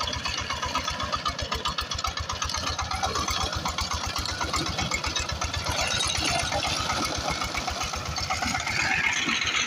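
Power tiller's diesel engine running with a rapid, even knocking beat. A rising whine joins near the end.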